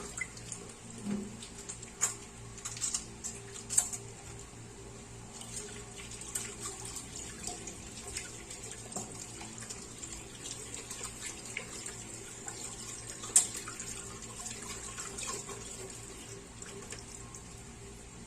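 Tap running into a sink while hands are washed under it, with splashing and a few sharp clicks, the loudest about 13 seconds in.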